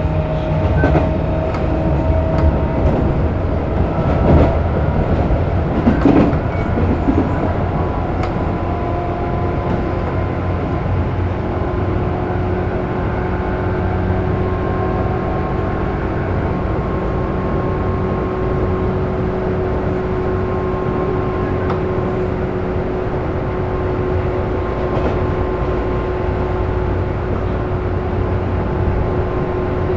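On-board running sound of a Tobu 9000 series electric car, MoHa 9804: the chopper control unit's steady whine tones over the rumble of wheels on rail, with scattered clicks from the track. Some tones glide slightly in the first few seconds, then hold steady.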